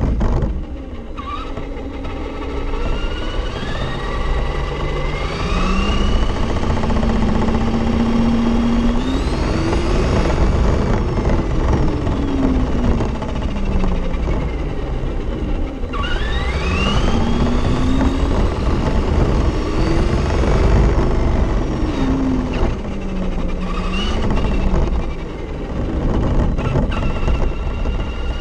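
Losi 22S-SCT radio-controlled short course truck driving over rough asphalt, heard from on board: its electric motor whines, rising and falling in pitch as the throttle comes on and off, over a steady rumble of tyres and body vibration.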